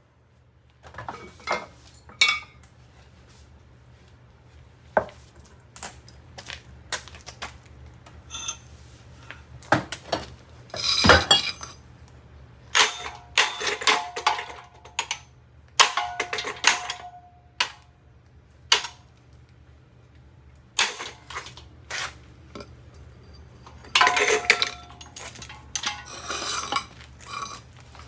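Hard objects repeatedly clattering and clinking against the spinning blades of a Harbor Breeze EF600-42 ceiling fan, in irregular bursts with brief ringing, over the fan's steady low hum.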